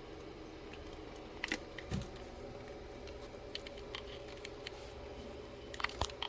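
A steady low hum with a few sharp clicks and knocks of small objects being handled: two about one and a half to two seconds in, and a cluster near the end.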